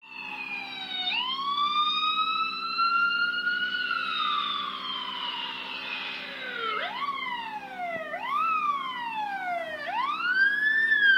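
Police car siren wailing: one slow rise and long fall, then quicker sweeps that shoot up and slide back down, about every second and a half.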